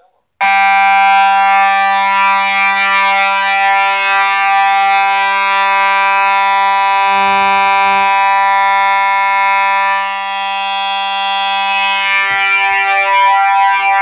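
Simplex 9219 electronic fire-alarm horn/strobe sounding after being switched on. It starts abruptly about half a second in and holds a loud, continuous, unpulsed horn tone.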